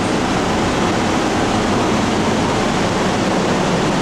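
Steady rushing air from a paint spray booth's ventilation fans, an even hiss and rumble with no change.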